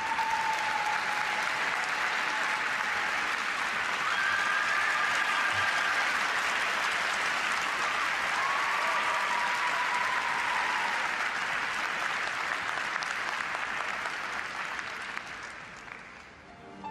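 Arena audience applauding the end of a figure skating program, with a few drawn-out calls rising above the clapping in the first part. The applause fades away near the end.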